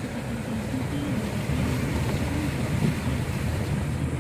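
A vehicle engine running steadily on the move, with wind rushing over the microphone.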